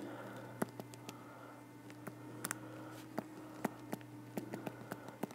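Stylus tapping and clicking on a tablet screen during handwriting: a run of faint, irregular clicks over a faint steady hum.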